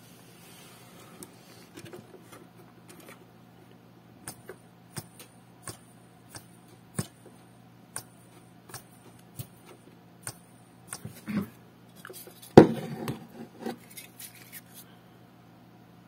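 Small DC drive motor of a Columbia GP-17 record player being handled in its cabinet: a steady low hum under a run of evenly spaced light clicks, each with a brief high squeak, about three every two seconds. A loud knock follows about twelve and a half seconds in.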